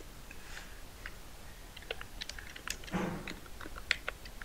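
Typing on a computer keyboard: a run of quick key clicks, thickening in the second half, with a brief low murmur about three seconds in.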